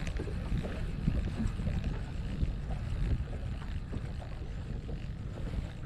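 Wind rumbling on the microphone over open water, with faint scattered ticks from a spinning reel being cranked to retrieve a lure.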